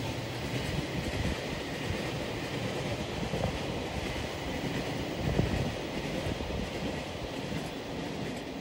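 Freight train of tank wagons rolling past, a steady rumble and rattle of wheels on the rails, with one sharper knock about five seconds in.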